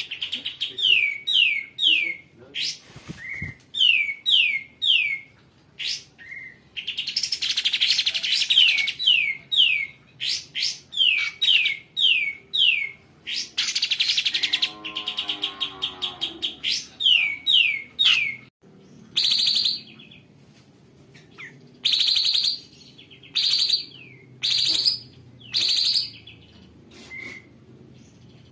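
Lemon-bellied white-eye (kapas tembak) singing: runs of quick down-slurred whistled notes, two to four in a row, alternating with long harsh, rapid chattering phrases.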